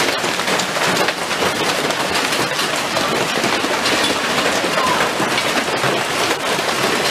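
Hail pelting down: a dense, steady clatter of many small hailstones striking cars and the ground.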